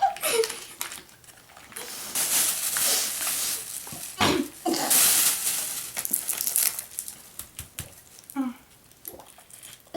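Capri Sun foil drink pouches crinkling as they are squeezed and handled, in several noisy stretches with sharper crackles about four and five seconds in. A brief vocal sound comes near the end.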